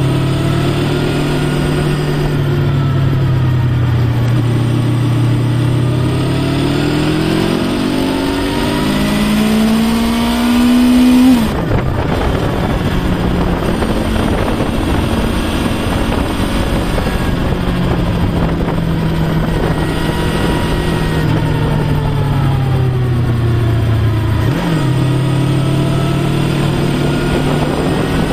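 Honda VFR800X Crossrunner's V4 engine on the move through bends. The pitch falls as it slows, then rises hard under acceleration and cuts off abruptly about eleven seconds in. After that it runs on with rising and falling revs and a quick blip near the end, over a steady rushing noise.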